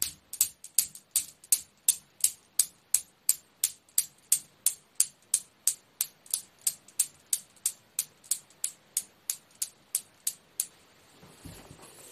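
Metal balls of a homemade Newton's cradle clacking against each other: a sharp click about three times a second, slowly fading and stopping about eleven seconds in. A brief soft handling noise follows near the end.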